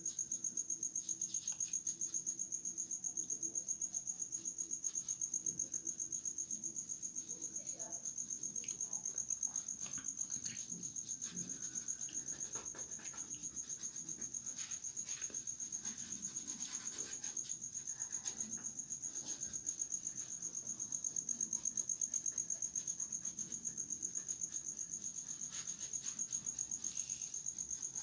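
A steady, high-pitched, rapidly pulsing insect trill, typical of a cricket.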